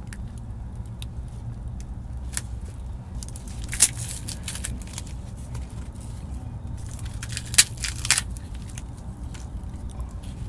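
Small wood fire crackling under an earthen cooking pot, with a few sharp clicks, the loudest about four and seven and a half seconds in, over a steady low rumble.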